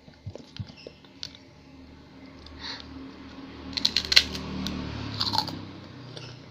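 Close-up eating sounds: crunchy food being bitten and chewed. There are a few scattered clicks, then a burst of crackling crunches about four seconds in and another shortly after.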